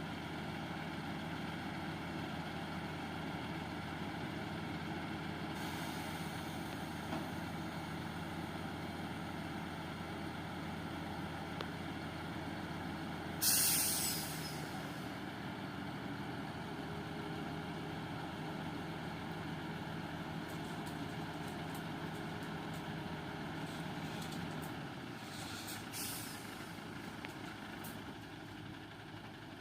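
Heavy truck's diesel engine idling steadily. About halfway through comes a sudden loud air-brake hiss, and near the end a shorter, fainter hiss; the engine hum drops away shortly before the end.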